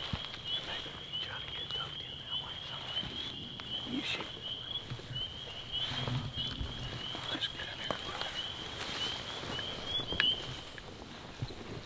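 A chorus of frogs calling outdoors: a steady, high-pitched run of rapidly repeated chirping notes that falls silent near the end, with a few faint rustles and knocks.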